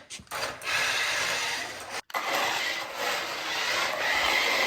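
1:14-scale electric RC drift car driving on rubber tires: a steady whine from its small motor over a rasping scrub of tires on the floor. The sound cuts out briefly just after the start and again about two seconds in.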